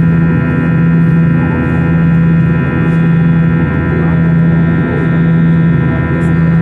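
Airbus A321's IAE V2500 turbofan engines heard from inside the cabin: a loud, steady drone of several unchanging hum tones, the strongest low, over a broad rush of air and engine noise.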